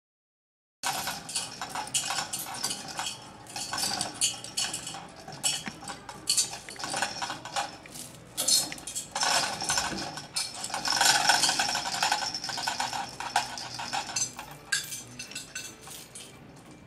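Steel hoist chain rattling and clinking in a continuous run of metallic clicks as a 1,000-pound test weight is lowered on it onto a floor scale, starting about a second in.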